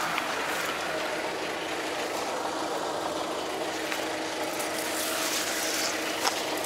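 Wheeled tractor's diesel engine running steadily, with grass brushing close to the microphone.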